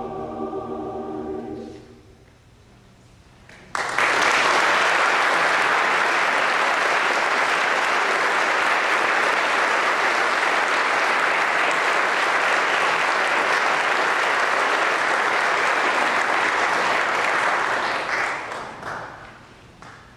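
A choir's final held chord dies away, and after about two seconds of quiet an audience breaks into applause. The applause starts suddenly, holds steady for about fourteen seconds, and fades out near the end.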